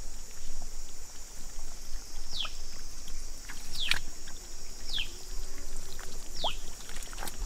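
Wet sloshing and splashing of muddy water as fish are worked out of the mud by hand. Insects buzz steadily, and a bird repeats a short falling call about every second and a half.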